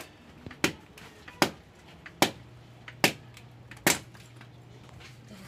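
Machete chopping firewood into kindling: five sharp strokes at an even pace, one about every 0.8 seconds, over a faint low hum.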